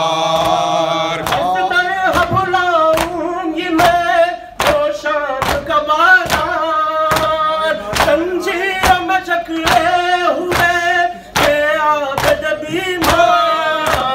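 Male voices singing a noha, a Shia lament chanted without instruments, over sharp, evenly spaced thuds about one and a half a second: the beat of matam, rhythmic chest-beating that keeps time with the lament.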